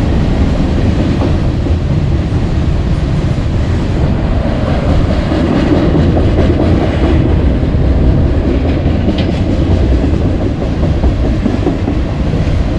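A train passing close by on the railroad, a loud, steady rumble of wheels on rails.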